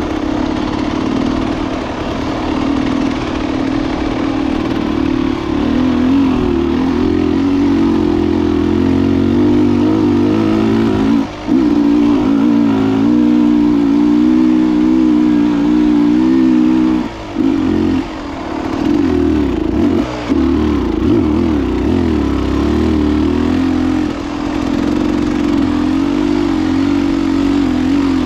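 Beta enduro motorcycle engine pulling hard up a dirt trail climb, its pitch wavering up and down with the throttle. The engine note drops briefly a few times around the middle as the throttle is chopped, then picks up again.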